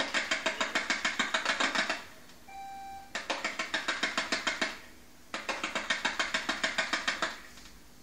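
Machine gun firing in three bursts of about one and a half to two seconds each, at about eight or nine shots a second. A short beep sounds between the first two bursts.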